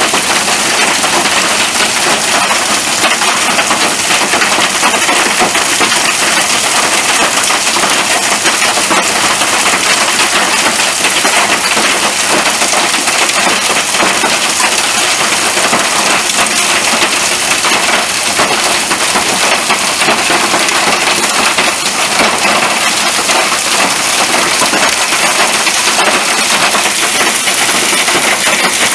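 Heavy rain from a thunderstorm pouring steadily, a dense, loud hiss of drops with many small pattering impacts.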